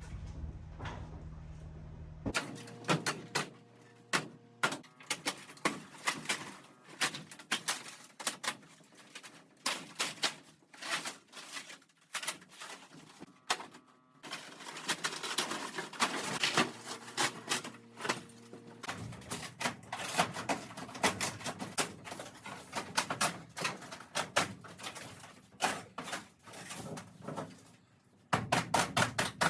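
Rapid, irregular knocking and clattering of demolition work stripping a caravan's interior, changing abruptly a few times.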